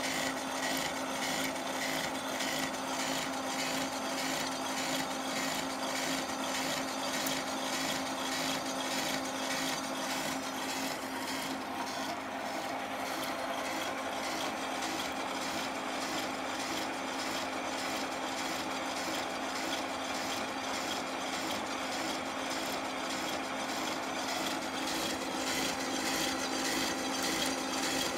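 Slitting saw on a horizontal milling machine cutting through aluminium plate at about 100 RPM with a slow feed: a steady sawing grind with a regular pulse, over a constant motor hum. The cut is lubricated with WD-40, and the cutter runs with some runout.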